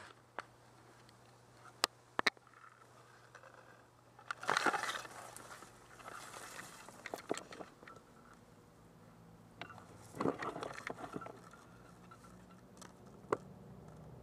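Dry grass and reed stalks rustling and crunching in irregular bursts as a person pushes through them, with a few sharp snaps.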